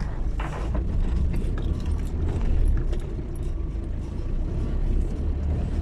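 Heavy car driving slowly over a rough, rutted dirt track: a steady low engine and road rumble with scattered knocks and rattles from the body and suspension as it lurches through the ruts.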